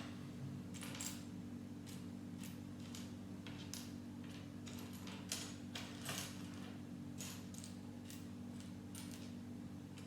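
Small plastic Lego pieces clicking and tapping irregularly as they are handled and pressed together, over a steady low hum.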